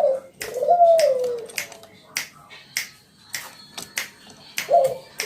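Spotted dove (tekukur) cooing: a short note and then a longer rising-and-falling coo, repeated near the end. A scatter of sharp clicks or snaps sounds in between.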